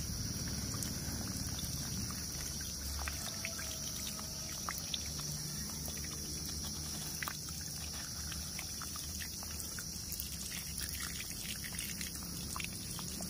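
A thin stream of water pouring steadily onto a small plastic toy tractor and trailer held in a hand, splashing and trickling off the toy, over a steady high hiss.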